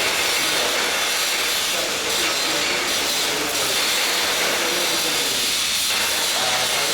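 Welding arc giving a steady hiss.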